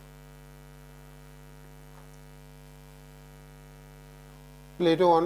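Steady electrical mains hum: a constant low buzz made of evenly spaced tones that does not change. A man's voice starts near the end.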